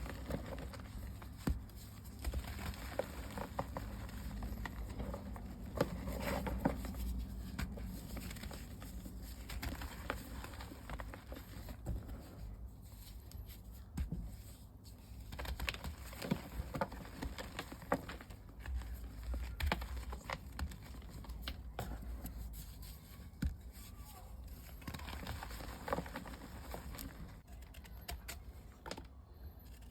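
Powdery gym chalk balls crumbling and crunching as they are broken up, a steady stream of small irregular crackles and soft crunches.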